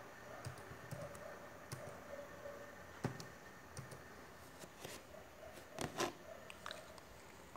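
Quiet, irregular clicks and taps of keys being pressed on a keyboard, with a sharper tap about three seconds in and two more close together around six seconds in, over a faint steady hum.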